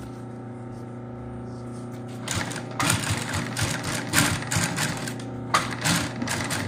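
Industrial post-bed sewing machine stitching a seam through a shoe upper. Its motor hums steadily at first, then the needle's rapid clatter starts about two seconds in and runs in several short bursts as the piece is fed through.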